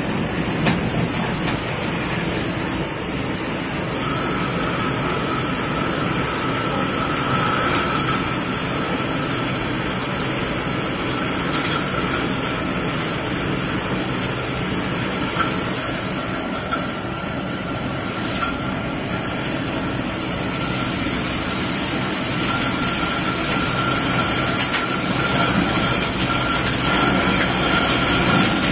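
Hirung EL75LL CNC lathe running steadily while its turret tool turns a metal workpiece, with a thin steady whine that comes in a few seconds in over the even machine noise.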